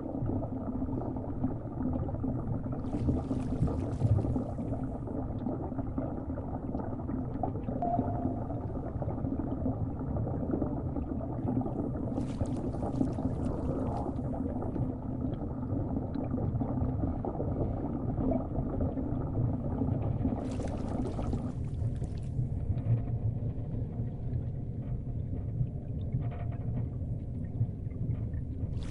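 Underwater sea ambience: a steady low rumble of water with a brief hissing swell three times, about every eight or nine seconds.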